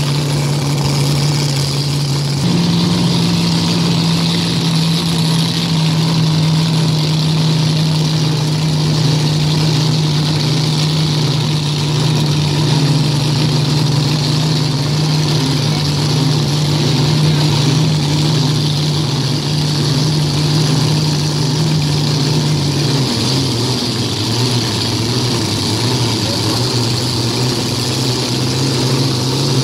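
Car engine idling steadily with a low, even tone. Its pitch steps up slightly about two and a half seconds in and drops back about three-quarters of the way through.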